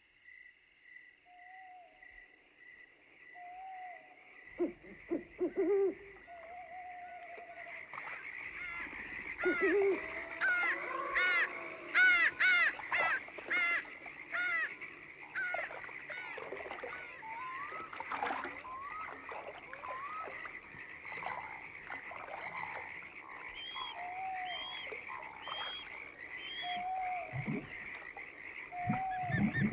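Nature ambience: insects trilling steadily, frogs croaking at intervals, and a burst of quick rising bird chirps about a third of the way in.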